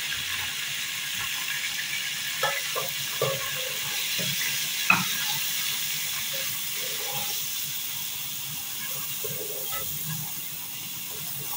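Garlic-ginger paste and turmeric sizzling steadily in hot oil in a metal pot, with a few knocks of the stirring spoon against the pot, the loudest about five seconds in.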